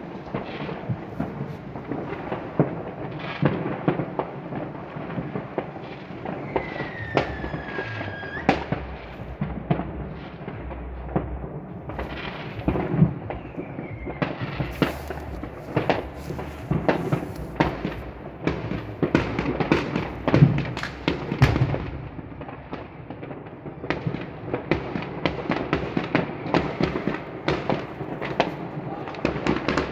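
Fireworks going off: a dense, continuous run of bangs and crackles from many fireworks at once. A whistling firework falls in pitch over about two seconds around seven seconds in, and a shorter whistle follows near fourteen seconds.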